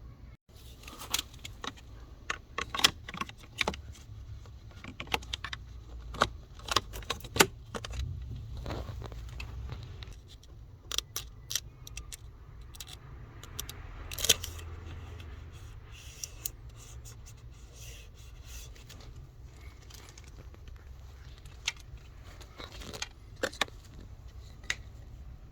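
Hands working plastic car-interior parts during a cabin air filter change: an irregular run of sharp clicks and knocks with some scraping. The strokes are densest in the first ten seconds and sparser afterwards.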